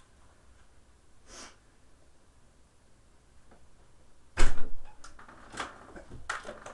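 A quiet room, then about four and a half seconds in a loud sharp knock, followed by three or four lighter clacks, the sound of hard objects being handled and bumped.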